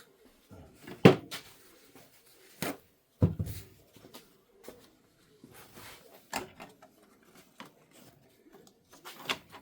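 Irregular clicks and knocks of hands handling plastic printer parts and an ink-filling tool, the loudest about a second in.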